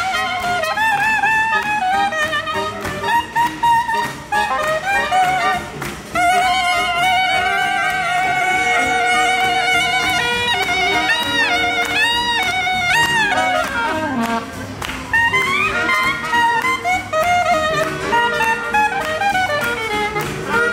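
Live hot jazz from a small band, with alto saxophone, trumpet and clarinet playing together. Many of the notes are held and wavering, with some sliding notes in between.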